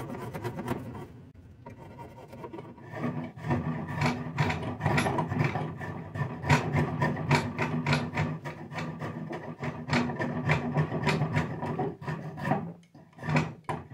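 A hand blade scraping and shaving bark off a cherry walking stick in quick repeated strokes, about four a second. The strokes ease off briefly about a second in, then pick up again.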